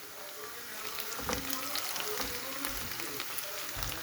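Food frying in a hot pan: a steady sizzle full of small crackling pops, with a few low knocks.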